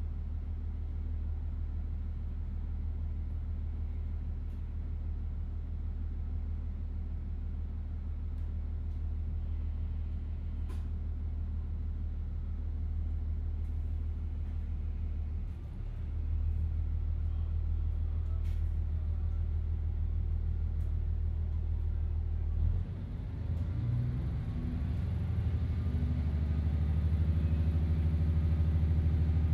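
KiHa 40 diesel railcar engine idling with a steady low hum, heard from inside the car; about three-quarters of the way through the engine note climbs and gets louder as the throttle opens and the railcar pulls away.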